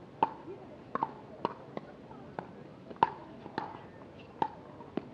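Pickleball rally: paddles striking the hollow plastic ball, a sharp pop roughly every half second, about ten in all, the loudest about three seconds in.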